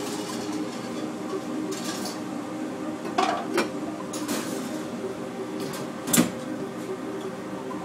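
Restaurant kitchen clatter: dishes, pans and utensils knocking against each other and against steel counters. Three knocks come between three and four and a half seconds in, and a louder clank comes about six seconds in, over a steady mechanical hum.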